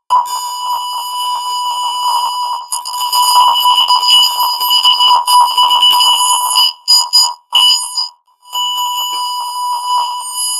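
Steady buzzy electronic beep tone, alarm-like, with rough warbling noise around it, the synthetic sound of a heavy audio effect laid over logo jingles. It breaks up into short chopped bursts about seven seconds in, then carries on.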